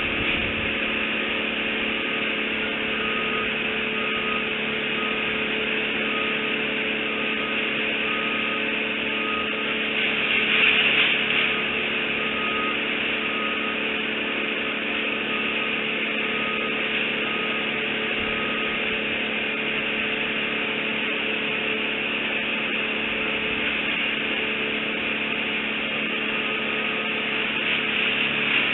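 A steady mechanical drone with a low hum and hiss. A faint short tone repeats about once or twice a second through much of it, and the drone swells briefly about ten seconds in.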